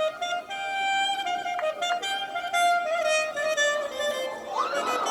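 Band music: a slow melody of long held notes, with a note bending upward near the end.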